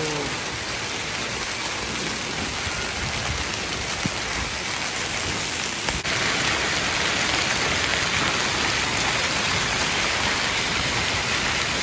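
Heavy hailstorm: hail and rain pelting paved ground and a yard with a steady hiss. It gets louder and brighter about six seconds in.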